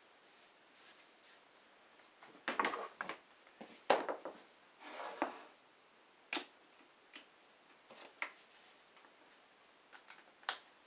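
Scattered clicks and knocks of wood and tools being handled on a bench, with a cluster of louder knocks about two and a half to four seconds in and a short scraping swish about five seconds in.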